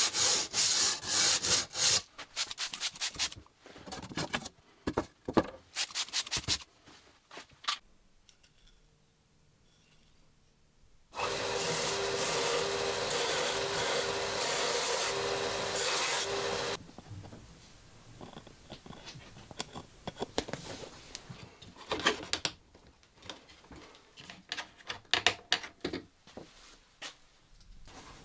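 Sandpaper rubbed by hand along a wooden edge in quick strokes. After a short pause, a benchtop belt sander runs for about five seconds, a steady grinding noise with a hum under it. Scattered light rubbing and taps of wood being handled follow.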